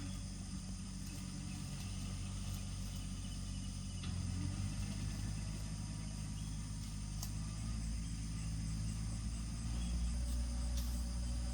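Insects trilling steadily over a low, steady engine-like hum.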